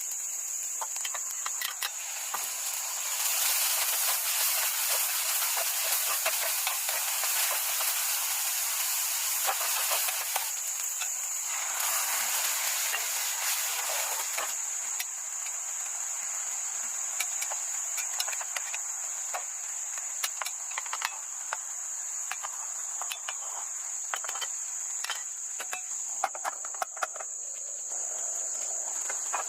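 Food sizzling and hissing in a hot pan, louder in two stretches early on, with many sharp clicks of a utensil against the pan. A steady high insect trill, typical of crickets, runs underneath.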